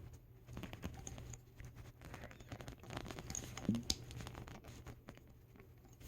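Hands handling a small plastic fashion doll, working its little shoes on: light scratching and scattered soft clicks, with a louder knock a little past halfway.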